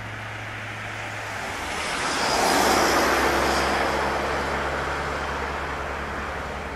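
A car passing by on the road: a swell of engine and tyre noise that builds to a peak about two and a half seconds in, then slowly fades, over a steady low hum.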